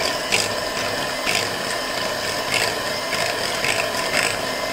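Electric hand mixer running steadily with its twin steel beaters whipping chilled liquid heavy cream in a glass bowl. Irregular sharp clicks, about one a second, come from the beaters knocking the glass.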